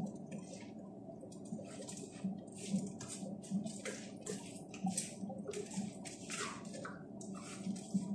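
Wooden spoon stirring a wet rice-and-vegetable mixture in a frying pan: repeated short squishing, scraping strokes, about one or two a second, over a faint steady hum.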